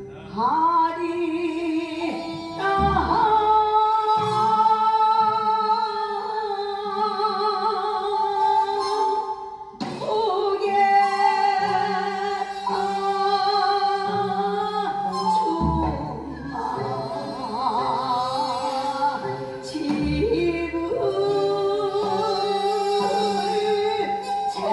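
A woman singing a slow Korean folk song (minyo), holding long notes with a wide vibrato, phrase after phrase, over a steady instrumental accompaniment.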